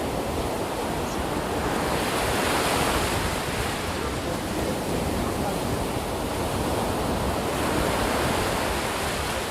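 Sea waves breaking and washing on the shore, a steady rush of surf that swells and eases slowly, with the louder surges about two to three seconds in and again near the end.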